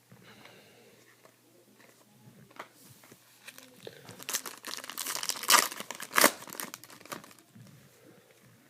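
Plastic wrapper of a trading card pack being torn open and crinkled. The faint handling clicks build about four seconds in to a few seconds of loud crackling, with two sharp peaks near the middle.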